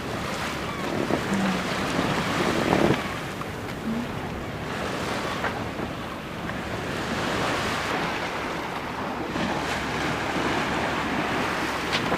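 Sea waves rushing past a sailing yacht under way, with wind buffeting the microphone; the noise swells and eases every few seconds.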